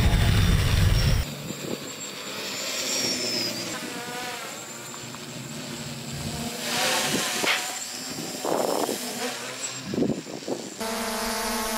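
Quadcopter's four brushless motors and propellers whirring in flight, their pitch gliding up and down as it manoeuvres. The sound changes abruptly twice, from a loud low rumble at first to a thinner whine, then to a steady hum with several even tones near the end.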